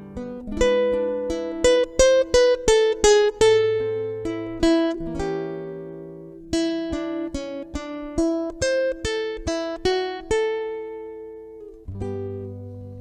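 Acoustic guitar playing an instrumental interlude: a melody of single plucked notes in quick runs, in two phrases, each ringing out as it ends.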